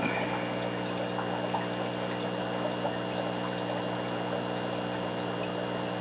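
Aquarium pumps and filters running: a steady electric hum with water trickling and bubbling, and a few faint ticks.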